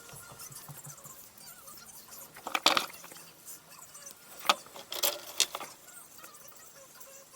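A few sharp clicks and knocks of small hard objects being handled: a cluster about two and a half seconds in, then a single loud click and a short run of knocks a couple of seconds later.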